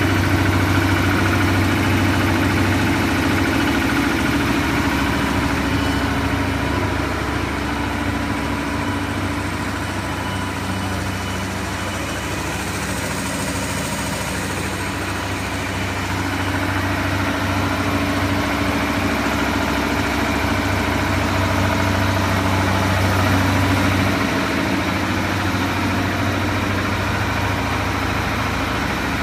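DAVY MF-50 mini CNG compressor running under load with a steady mechanical hum, compressing natural gas to near 200 bar while filling a car's tank. It dips a little in level about a third of the way through, then steadies again.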